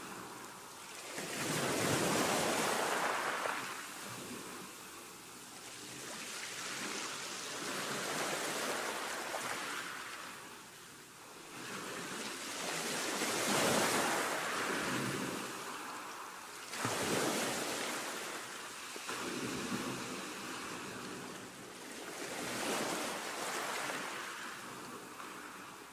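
Rushing, surf-like noise that swells and fades every three to four seconds, like waves washing in.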